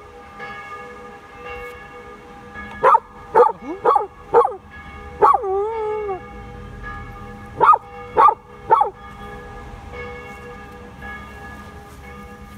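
Samoyed puppy howling along to ringing church bells, whose tones hang on steadily underneath. The puppy gives five short yelping howls a few seconds in, each sliding down in pitch, the last longer and wavering, then three more a few seconds later.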